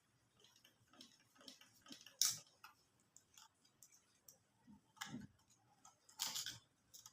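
Irregular light clicks and knocks of a sewing machine being worked on by hand, with sharper clicks about two seconds and five seconds in and a short rattle near the end.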